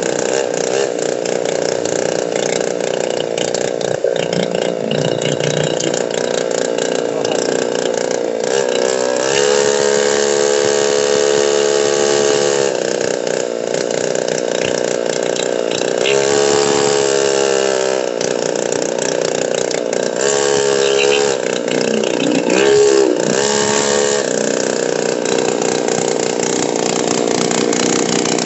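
Motorcycle engine running under way, its pitch rising and falling several times as it accelerates and slows, with steady road noise.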